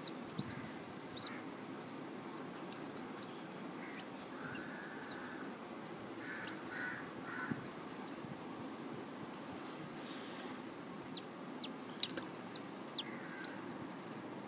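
A newly hatching chick peeping while the eggshell is picked away by hand. The peeps are short and high, each falling in pitch, coming in loose clusters near the start, around the middle and near the end.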